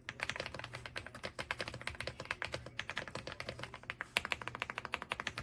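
Fast, continuous typing on an AULA F99 mechanical keyboard with pre-lubed linear switches, many keystrokes a second.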